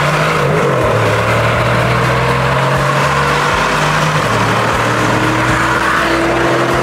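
A high-powered car's engine under full-throttle acceleration, heard from inside the cabin over loud wind and tyre roar. Its pitch climbs slowly, then drops back about four seconds in, as at an upshift, and climbs again.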